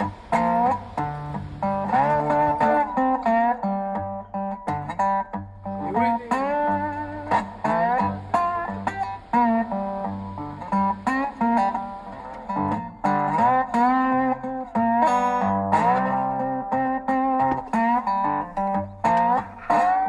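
Background music: a bluesy guitar tune with notes that slide up and down in pitch.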